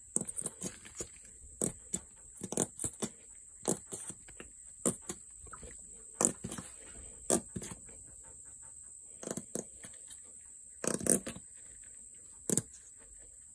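Plastic squeeze bottle of yellow mustard sputtering as it is squeezed: about a dozen short, irregular farting squirts, roughly one every second, with the loudest near the end.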